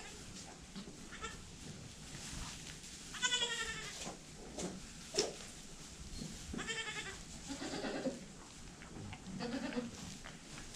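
Boer goats bleating: several separate bleats a few seconds apart, some higher and some deeper. A single sharp knock about five seconds in.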